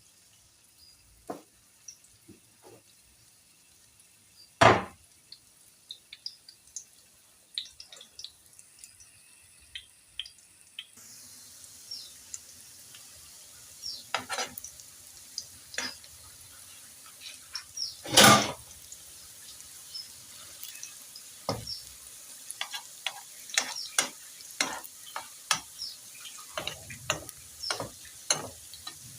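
Metal utensils clicking and knocking against a pan, with a loud clank near the start. About eleven seconds in, hot oil starts sizzling steadily as a new batch of potato fritters goes into the pan, with more spoon clicks and another loud clank.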